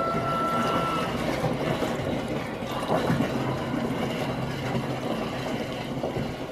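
Maple sap pouring steadily from a plastic bucket through a stainless steel funnel into a plastic drum, a continuous splashing pour.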